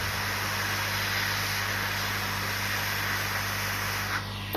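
Steady hiss of air blowing from a hot air rework station, stopping about four seconds in, over a constant low electrical hum.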